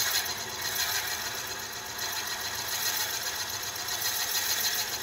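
Wood lathe running steadily, spinning a red cedar vase blank that rides in a steady rest's rollers, with no tool cutting.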